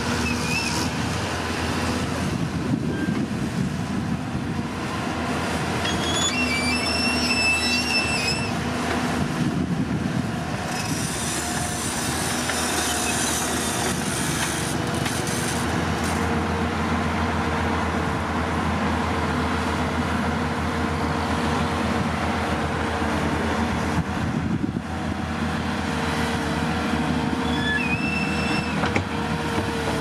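Caterpillar crawler bulldozer's diesel engine running steadily under work, with brief high-pitched squeals from its steel tracks several seconds in and again near the end.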